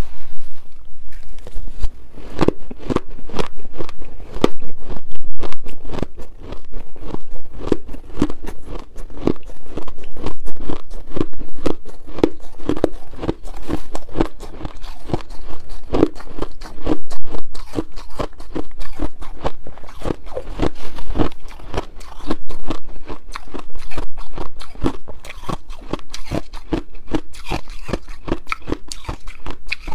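Close-miked crunching of shaved ice: a metal spoon digging into a glass bowl of shaved ice, and the ice being bitten and chewed. The crunches come in quick succession, about twice a second.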